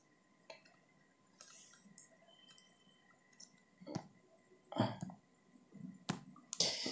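Faint room quiet broken by a few soft clicks, one about four seconds in and another near the end, with a short soft noise in between.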